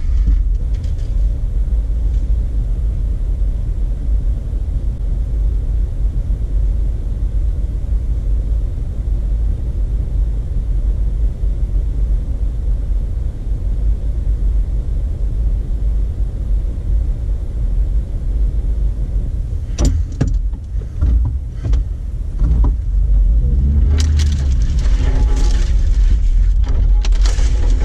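Jeep Wrangler engine running at idle, a steady low rumble heard from inside the cabin. There are a few sharp knocks about twenty seconds in, then the engine picks up under load as the Jeep pulls away near the end.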